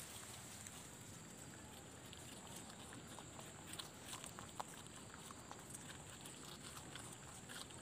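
Domestic rabbits munching leafy greens: faint, irregular little crunches and leaf rustles over a steady hiss.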